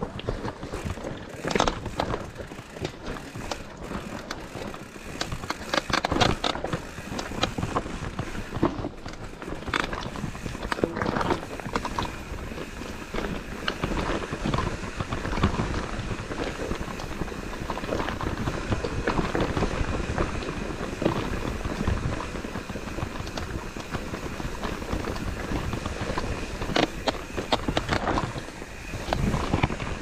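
Mountain bike rattling over a rough dirt trail, with tyre noise and a steady string of clicks and knocks from the bike.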